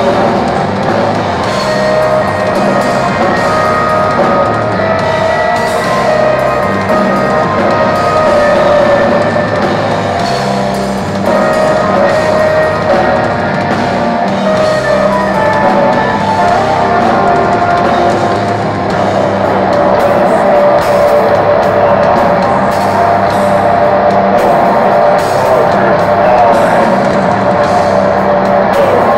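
Black metal band playing live: distorted electric guitars and bass guitar, loud and continuous.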